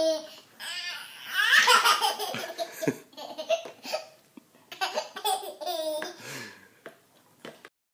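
A toddler laughing in several peals of giggles and belly laughs, dying away near the end.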